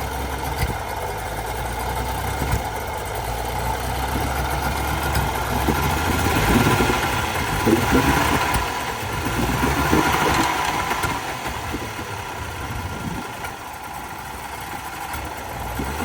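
Old 60 hp Mercury oil-injected two-stroke outboard running after its carburetors were cleaned; its sound rises and falls unevenly through the middle, then settles.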